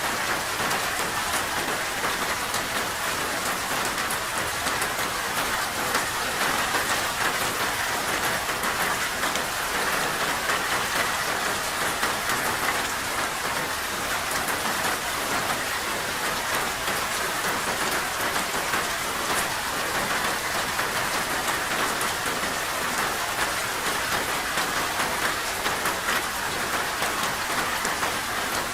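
Steady rain falling, a dense even patter of drops on a surface with a hiss, no single drop standing out.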